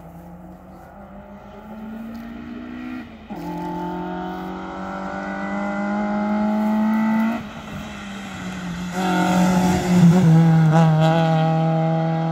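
Rally-prepared Volkswagen Golf Mk2 accelerating hard toward the listener. Its engine note climbs in pitch, breaks off briefly about three and about seven seconds in, then is loudest as the car passes close about ten seconds in.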